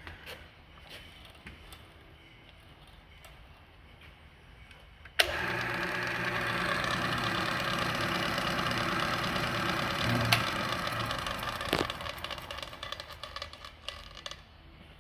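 Heald horizontal mill's spindle, driven by its 1 horsepower three-phase motor, switched on with a click about five seconds in and running steadily at high speed with a low hum. About twelve seconds in it is switched off with a click and winds down.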